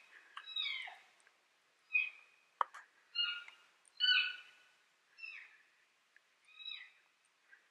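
Repeated cat-like mewing calls, each a short call that falls in pitch, about six of them roughly a second apart, fading toward the end. A single sharp click falls between two of the calls.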